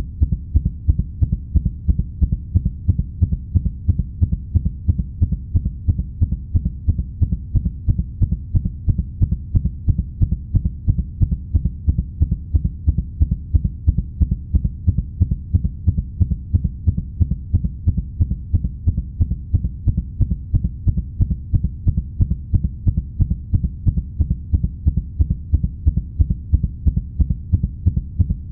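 Heartbeat sound effect at a fast 180 beats per minute: about three low, evenly spaced thuds a second, steady throughout, over a continuous low hum.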